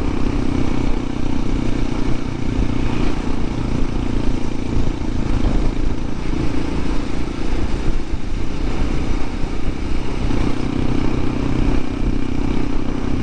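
Honda CT125 Hunter Cub's air-cooled single-cylinder engine running under way on the road, its note easing off and picking up again partway through, with steady wind rushing over the microphone.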